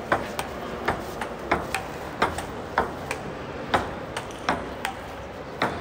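Ping-pong rally: the ball clicking off paddles and table at an irregular pace of two to three hits a second, some hits ringing briefly.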